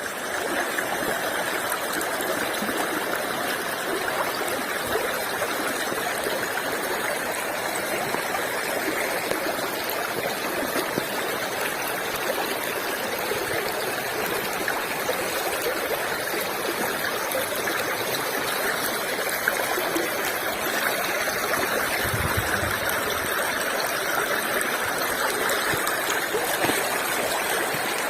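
Running water of a stream, flowing steadily.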